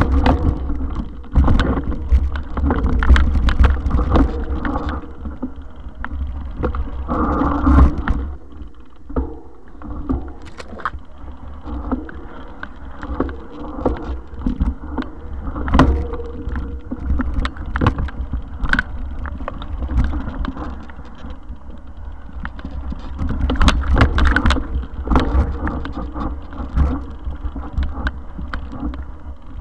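Mountain bike being ridden over a rough, rutted dirt trail. A constant low rumble of wind and trail noise sits on the camera's microphone, with frequent sharp rattles and knocks as the bike and camera jolt over bumps.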